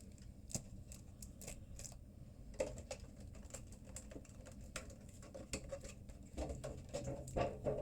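Faint, scattered clicks and light rustling from handling a Pokémon booster pack and its cards while the pack is opened.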